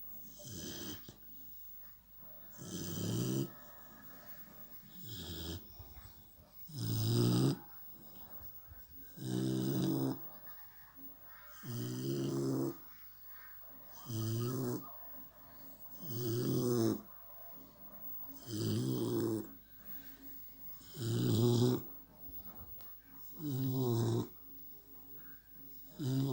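American Staffordshire terrier puppy snoring, a regular rhythm of snores about every two and a half seconds, around a dozen in all.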